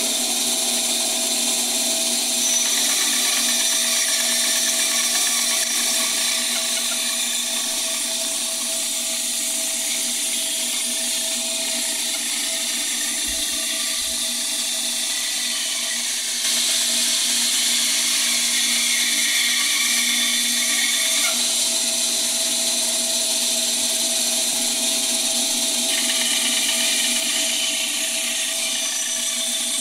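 Small benchtop wood band saw running steadily, its blade cutting a curve through a wooden board fed by hand: a constant motor hum under a dense hiss of the cut, a little louder from about sixteen seconds in.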